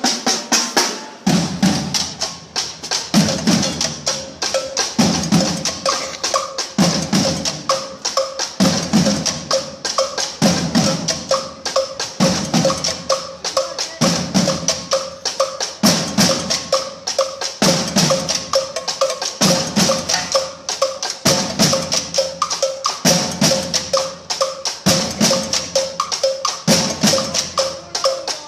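Street drum ensemble playing together: many drummers on marching bass drums, snare drums, toms and cymbals beating a fast, dense rhythm with cymbal wash, and a heavier low accent about every two seconds.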